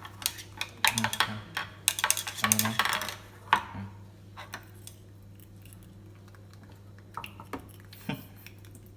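A spoon clinking and scraping against a dish as it is stirred: a rapid clatter for the first three to four seconds, then a few scattered clicks.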